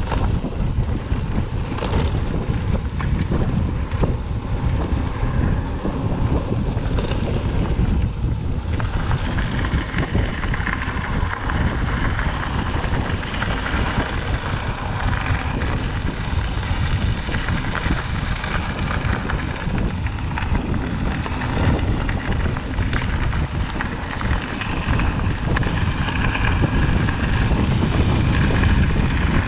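Wind buffeting the microphone of a camera riding along on a Canyon Neuron mountain bike going downhill, mixed with the rolling and rattling of the bike on the trail. The noise grows denser and brighter about nine seconds in.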